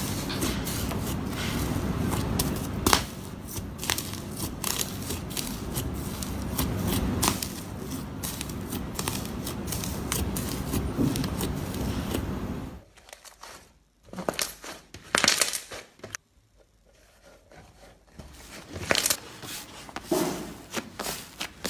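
Slime being squeezed, poked and stretched, giving many sharp clicking pops and crackles. About two-thirds through the sound drops abruptly to a quieter stretch with only occasional pops, then the clicking picks up again near the end.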